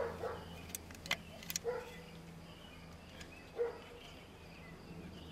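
Light plastic clicks from handling a fog light switch and its wiring plug, three sharp clicks in quick succession about a second in, over a faint steady low hum.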